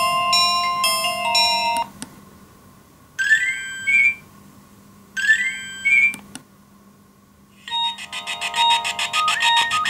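Nokia 1600 mobile phone playing previews of its built-in alert tones through its small loudspeaker as the list is scrolled. A melodic tone cuts off about two seconds in, a short rising chime plays twice, and a buzzier, rapidly pulsing tone starts near the end.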